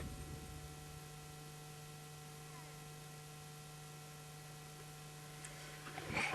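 Faint steady electrical hum made of several fixed tones, with the last of a car's running sound dying away in the first second and a brief louder sound near the end.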